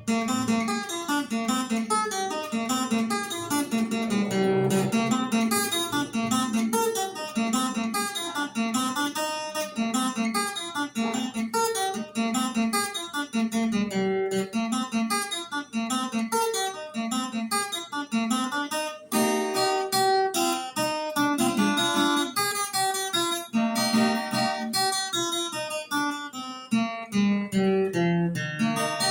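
Viola caipira, the Brazilian ten-string guitar, played solo: a plucked melody over a steadily repeating bass note, with a short break about nineteen seconds in.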